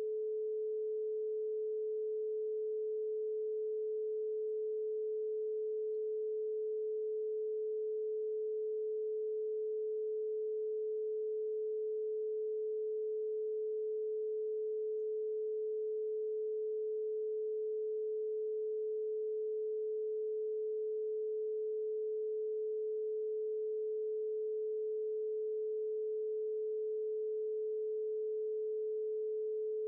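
Electronically generated isochronic tone for brainwave entrainment: one steady, unchanging, mid-pitched pure tone.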